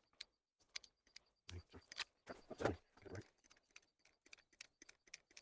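Faint, scattered clicks and knocks of a hand crimping tool and wire lug being handled while crimping 4-gauge power wire, with a few faint muttered sounds in between.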